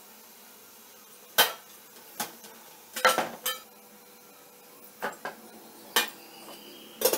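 Aluminium idli steamer, its plates and domed lid and a steel serving plate clanking and clinking while the steamed ragi idlis are taken out: about nine sharp metal knocks, some in a quick cluster about three seconds in, a few ringing briefly.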